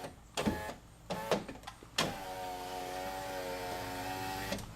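A few short knocks, then about two seconds in the power window motor of a 2008 Toyota Highlander's driver's door starts and runs steadily for about two and a half seconds, moving the glass, before cutting off.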